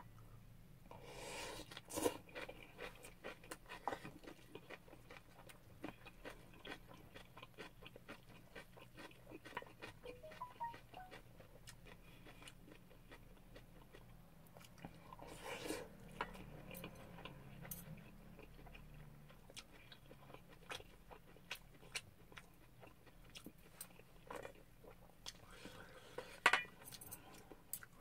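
Close-up eating sounds: a person chewing mouthfuls of shrimp fried rice, with light clicks of a wooden spoon and metal chopsticks against a stainless steel bowl. A few louder short sounds come about a second in, about halfway through and near the end.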